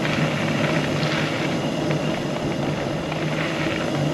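Steady rolling noise of a bicycle riding along the trail: the tyres running on the surface with a constant low hum, and wind rushing over the camera microphone.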